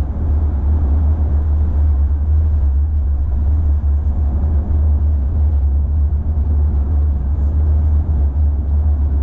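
Steady low rumble of tyre, road and engine noise heard inside the cab of a 2021 Toyota Tacoma pickup cruising at freeway speed.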